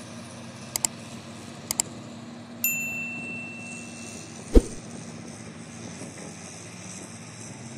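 Mining haul truck's engine running with a steady low drone, overlaid with subscribe-button sound effects: two quick double mouse clicks about one and two seconds in, then a notification bell ding near three seconds that rings out. A single sharp thump comes about four and a half seconds in.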